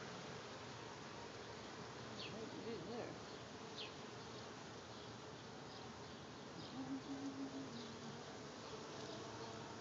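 Honeybees flying around their hive and buzzing faintly. A bee passes close twice, about three and seven seconds in, its buzz rising and falling in pitch as it goes by.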